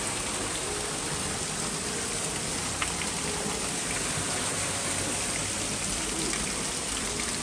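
Steady rush of running water, with a single sharp click about three seconds in.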